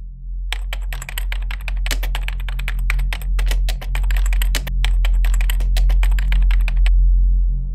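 Rapid computer-keyboard typing clicks, a computer-terminal sound effect for text being typed out. They start about half a second in and stop shortly before the end, over a low steady drone.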